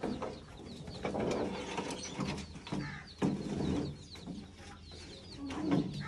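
Birds chirping in a quick, steady series of short high calls, with fowl clucking among them. A few knocks and scrapes come from an evaporative air cooler being moved into place.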